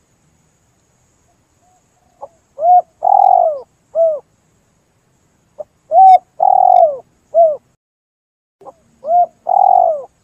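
Spotted dove cooing: three repeated song phrases about three and a half seconds apart, each a short note, a couple of coos and a long falling coo, starting about two seconds in.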